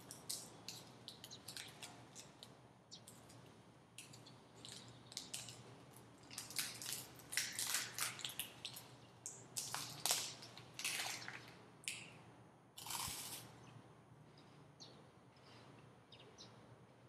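Plastic wrapper of a Knoppers wafer bar crinkling and tearing as it is opened by hand, in a quick run of crackles that is busiest in the middle and stops a few seconds before the end.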